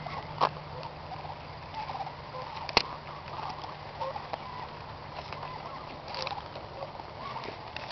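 Goat biting and chewing an apple held out by hand, with scattered small crunches and two sharp bites, one about half a second in and a louder one near three seconds in.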